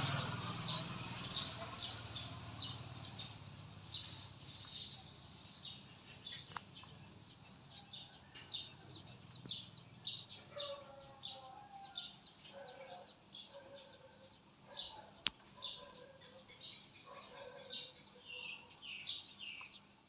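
Small birds chirping repeatedly, short high chirps about once or twice a second, with lower calls joining in from about halfway through. A low rumble fades away in the first few seconds.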